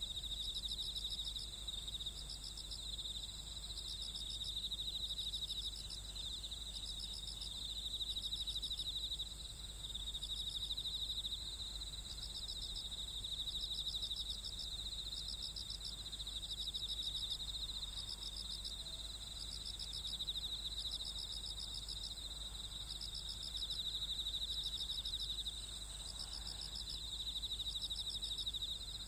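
Night insects chirping: a steady high trill, with a second insect's quick pulsed chirps repeating about once a second over it.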